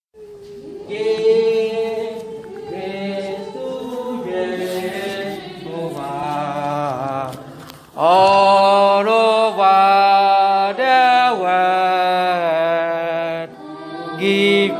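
A slow worship song sung unaccompanied, with long held and wavering notes. It gets much louder about eight seconds in.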